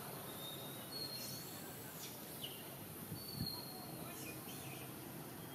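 Faint, short high-pitched chirps and whistles from animals, scattered over a steady outdoor background hiss, with a single soft thump a little over three seconds in.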